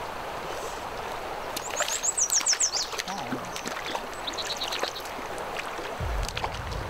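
Flowing river water with a bird singing a quick trill of short falling high notes about two seconds in, and a fainter, shorter run of notes a little after four seconds.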